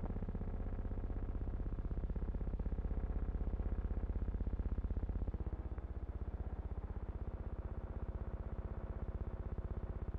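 Added soundtrack of low, droning synthesizer tones with a fast, even flutter; the held chord shifts about halfway through. No sound of the railway work itself.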